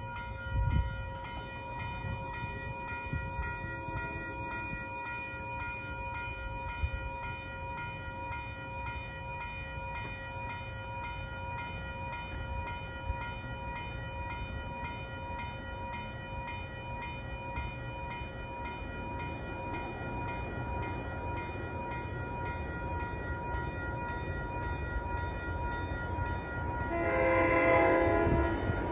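Railroad grade crossing warning bell ringing steadily in a fast, even pulse. A low rumble builds in the second half, and a train's chime horn sounds once, briefly, near the end.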